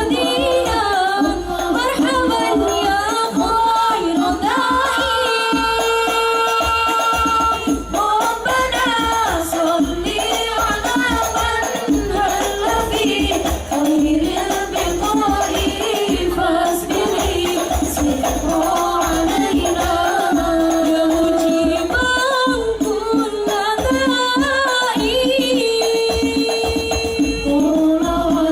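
Banjari sholawat music: rebana frame drums playing a continuous rhythm under a sung devotional melody with long held notes.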